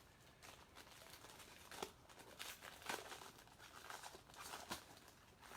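Faint rustling, flicking and light crinkling of trading cards and their plastic sleeves being handled and sorted by hand, in short irregular bursts.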